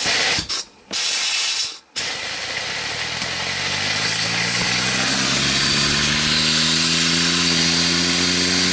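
Compressed air blown into a 3D-printed Tesla turbine. Two short blasts of air hiss come first. Then a steady rush of air sets in, and the turbine's whine rises slowly in pitch as its rotor spins up.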